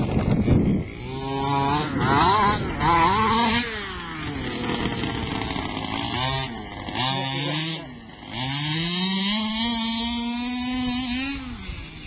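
Small two-stroke engine of a gas-powered radio-controlled car revving up and down again and again under the throttle, then held at a steady high pitch for about three seconds before it drops off near the end.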